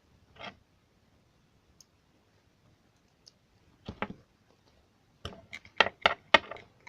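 Keys on an Apple II keyboard being pressed, each giving a sharp click. There is one keystroke, then a pair, then a quick run of about six near the end.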